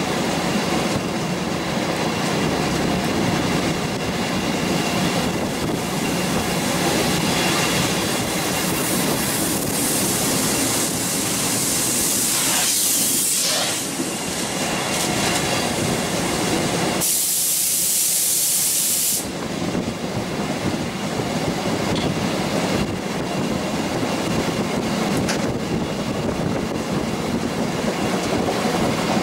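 Train running along the track, heard from on board: a steady rumble of wheels on rails with clickety-clack over the joints. Twice a high hissing rush rises over it, the second lasting about two seconds and cutting off sharply.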